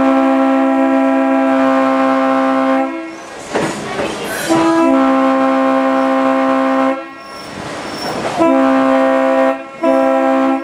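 Multi-chime train horn sounding several tones together in four blasts: two long ones, then two short ones in quick succession near the end. Rail clatter can be heard in the gaps.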